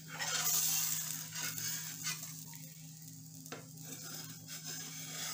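Batter-coated bread frying in butter on a hot tawa, sizzling steadily, while a steel spatula scrapes under it to loosen it for flipping, with a few short scraping strokes.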